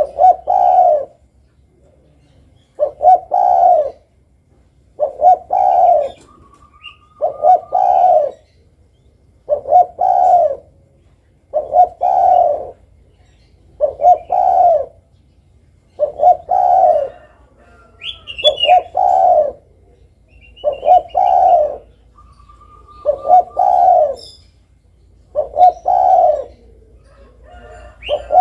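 Spotted dove (derkuku) cooing: a phrase of two short notes running into a longer coo, repeated about every two seconds. A few faint, higher chirps from another bird fall between the phrases.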